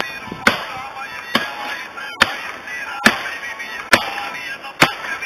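Hatchet chopping into the trunk of a small tree: about six sharp strikes, evenly spaced a little under a second apart.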